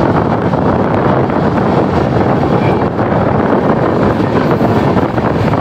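Wind buffeting a microphone held out of a fast-moving passenger train's window, over the steady running noise of the train on the track.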